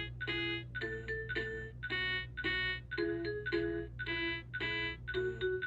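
Electronic toy melody from a VTech Discovery Nursery Farm: a bright, chime-like instrumental tune of evenly paced notes, about two a second, with a steady low hum underneath.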